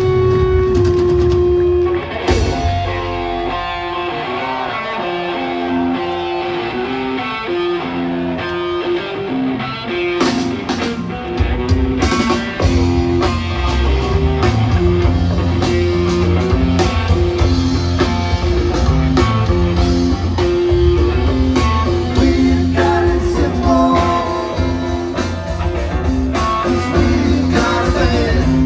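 Live rock band playing an instrumental jam: electric guitar lines over a steady bass, with the drums getting busier about ten seconds in.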